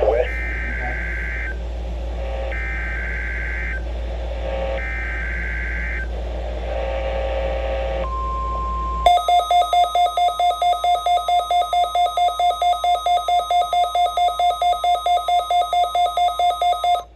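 NOAA Weather Radio Emergency Alert System weekly test: three bursts of the buzzing SAME digital header about a second apart, then a short steady tone, then rapid electronic beeping at about five beeps a second that cuts off just before the broadcast voice.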